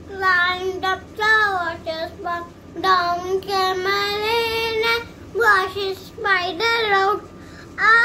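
A young girl singing a nursery rhyme in a high voice, in short held phrases with brief pauses between them.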